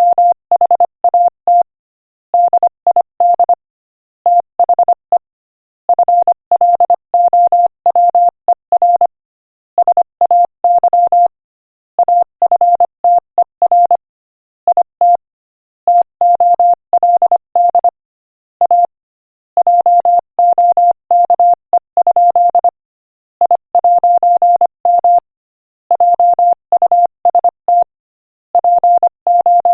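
Morse code at 25 words per minute: a single steady tone keyed on and off in quick dots and dashes, grouped into letters and words by short silences.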